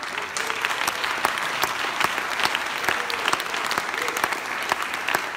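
Audience applauding, a dense, sustained clapping that breaks out at once and is louder than the speech around it.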